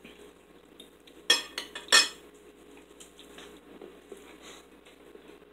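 Metal forks clinking and scraping against dinner plates while eating, with a few sharp, louder clinks between about one and two seconds in.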